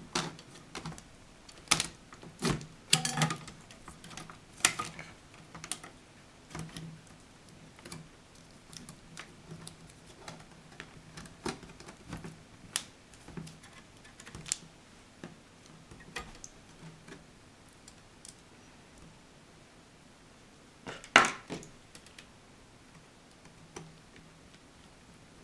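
Scattered small clicks and taps of hands working on an HP Pavilion dv6 laptop's screen assembly: the replacement panel being set into the lid frame and its small screws handled. A louder clatter of several clicks comes about 21 seconds in.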